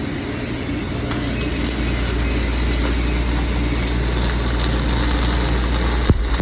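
Stick (SMAW) welding arc burning on a 6G pipe joint, a steady crackling hiss over a low steady hum, with a sharp click about six seconds in.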